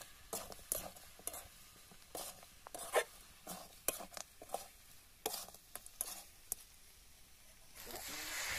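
Metal spatula scraping and knocking against a metal kadai while chicken curry is stirred and fried, in irregular strokes. Near the end, water poured into the hot pan sets off a steady sizzling hiss.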